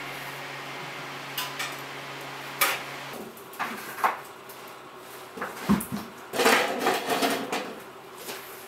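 Scattered clinks, taps and scrapes of a cup and tools being handled while refractory cement is poured into a mould, with a busier run of clatter a little past the middle.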